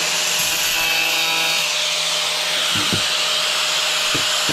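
Angle grinder cutting a hole through a tile, pressed on gently: a steady grinding rasp over the motor's constant whine. There is a brief higher ringing from about half a second to a second and a half in.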